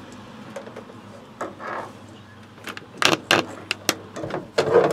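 Handling of a window screen frame, its spline and screen mesh: light rustling, then from about three seconds in a run of sharp clicks and rattles, with a cluster of louder knocks near the end.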